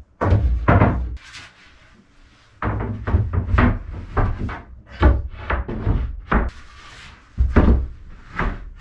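Plywood floor panels being lifted, shifted and laid into place on a boat's wooden sole. There is a run of wooden knocks, thuds and scrapes, with the loudest groups near the start and in the middle.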